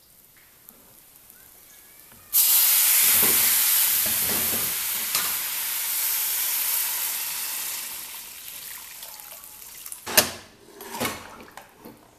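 Water poured into a hot saucepan of rice and pequi toasted in oil: about two seconds in, the water hits the hot fat with a sudden loud sizzling hiss that slowly dies away over several seconds. Near the end come a few sharp knocks against the pot.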